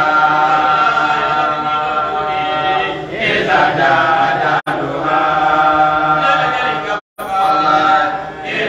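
Men's voices chanting an Islamic religious chant through microphones, in long held notes with phrases of a few seconds each. The sound cuts out briefly twice.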